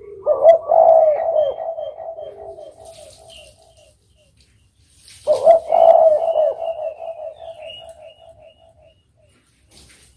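Spotted dove (derkuku) cooing: two song phrases about five seconds apart. Each opens with a loud low coo and trails off in a run of quick, fading notes.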